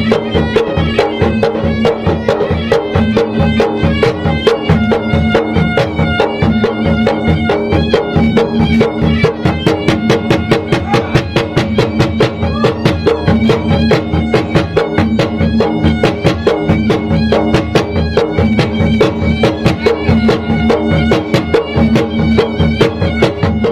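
Traditional Maros (South Sulawesi) gendang drums beaten in a fast, dense, unbroken rhythm, with a shrill reed wind instrument playing a continuous melody over them.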